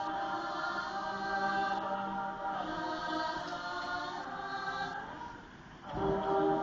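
Show choir singing held, sustained chords. The sound dips about five and a half seconds in, then a new, louder chord comes in near the end.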